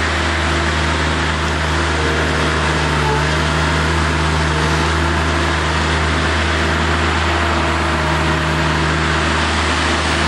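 Engine of an Avant compact articulated loader running steadily under load as the machine drives its bucket into a soil pile and backs away.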